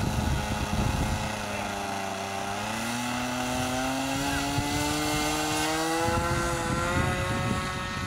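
Nitro glow-fuel engine of a radio-controlled model plane running in flight: a steady buzz whose pitch dips slightly, then climbs gradually from about three seconds in. Wind buffets the microphone at the start and again near the end.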